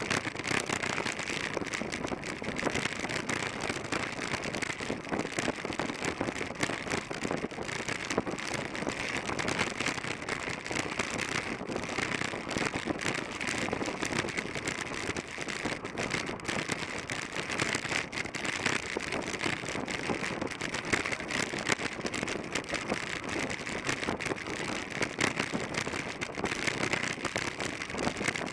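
Steady rushing wind noise on the microphone of a camera mounted on a track bike riding at about 21 to 24 mph, mixed with the hum of tyres rolling on the velodrome's concrete.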